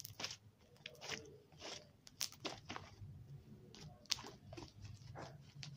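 Crunchy, crackly slime being squeezed and poked, giving irregular sharp crackles and pops.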